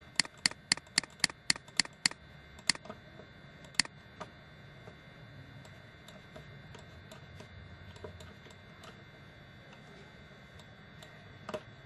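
Computer mouse clicking: a quick run of about nine clicks, roughly four a second, then a few single clicks, with fainter scattered clicks afterwards.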